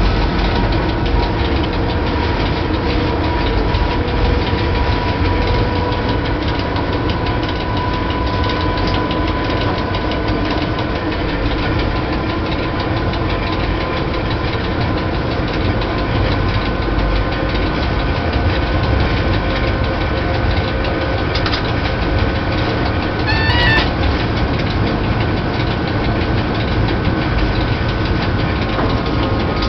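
Inside the cab of an electric locomotive under way: a steady low rumble with a few steady whining tones from the running gear and traction drive. A short electronic beep sounds about two-thirds of the way through.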